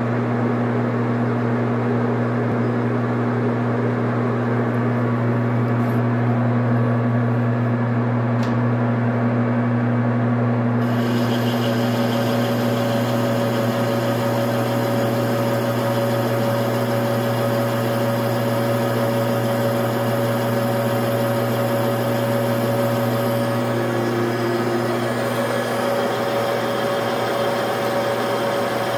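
Metal lathe running with a steady hum. About ten seconds in, a higher hiss and whine join and hold as the tool cuts into the tool-steel workpiece.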